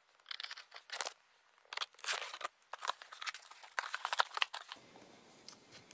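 A knife slicing through the packing tape along a cardboard box's seam, then the flaps being pulled open: a run of short, irregular scratchy rasps that stop about three quarters of the way through.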